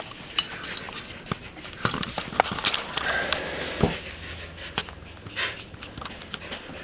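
Samoyed puppies and a cat scrambling in and around a pet play tunnel: scattered, irregular paw taps, scratches and brief rustles.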